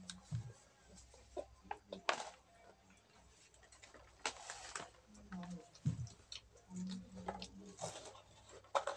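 Children eating crunchy snacks at a table: scattered small crunches and clicks, and a few short rustles of plastic snack packets.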